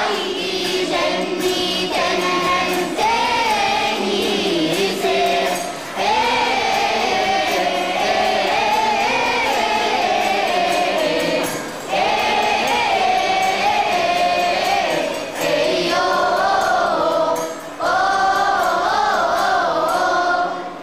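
A children's choir singing together, a hymn-like melody in phrases with short breaks between them.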